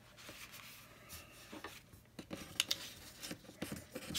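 Hands handling paper: planner pages and a sticker sheet rustling faintly, with a few light clicks and taps, most of them in the second half, as stickers are pressed down and the pages smoothed flat.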